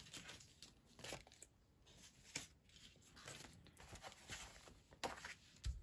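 Faint rustling and crinkling of paper and sticker sheets being handled, with a few soft clicks and a light knock near the end as things are set down.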